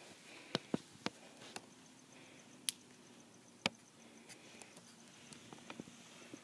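About six scattered sharp clicks and taps over a faint steady hum, most of them in the first four seconds.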